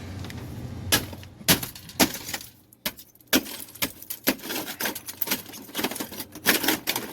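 Irregular sharp clinks and knocks, about a dozen over several seconds, as chunks of ice and the metal of a freezer evaporator's iced-up drain pan are handled.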